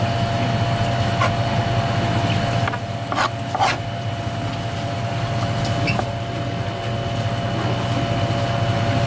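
Steady low mechanical hum of kitchen machinery, with a few light knife clicks on a cutting board as shellfish meat is sliced, two of them close together about three seconds in.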